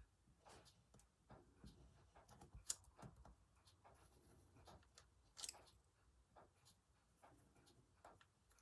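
Near silence with faint, irregular scratches and light ticks of a pen tracing over paper, two of them a little louder about a third and two-thirds of the way through.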